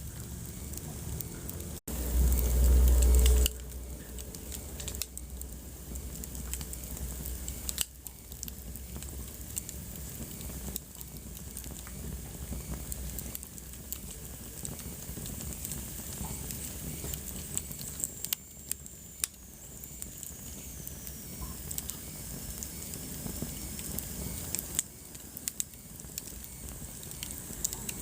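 Wood fire crackling in a fireplace: scattered pops and snaps over a steady hiss. About two seconds in, a brief dropout is followed by a loud low rumble lasting about a second and a half.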